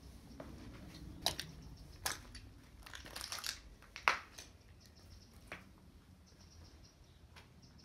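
Footsteps crunching on broken glass and rubble: a handful of crackling steps, the loudest about four seconds in, then the steps die away over the last two seconds.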